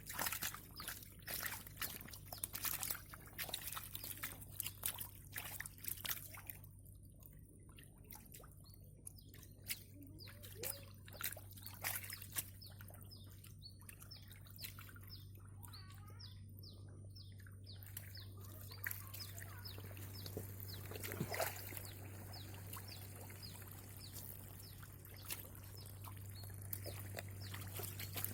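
Shallow muddy water splashing and trickling as a pond is drained and fish are caught by hand: many sharp irregular splashes for most of the first two-thirds, then a steadier trickle of pouring water, over a constant low hum.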